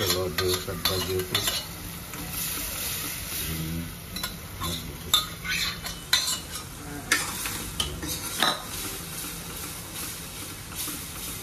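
Steel spoon scraping and clinking against a stainless steel pot as boiled vegetables are tipped into a hot pan of oily masala, which sizzles, then stirring in the pan with repeated metal clinks.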